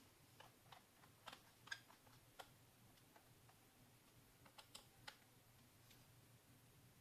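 Faint keyboard typing: light irregular key clicks in two short bursts, the first lasting about two seconds and the second, briefer, about four and a half seconds in.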